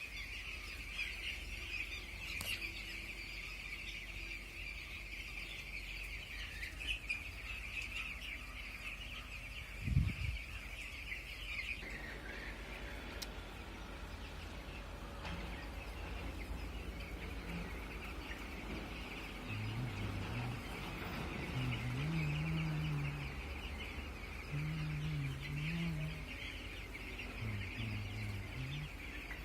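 A flock of chickens in a poultry shed: a dense, steady din of high chirping from many birds, with short low clucks in the second half. A single thump about ten seconds in.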